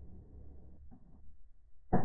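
Faint low outdoor rumble, then near the end the sudden onset of a loud blast from a homemade PVC alcohol gun firing.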